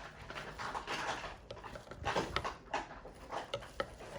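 Spoon stirring ground coffee into hot water in a cup: irregular swishes of liquid with light clinks of the spoon against the cup.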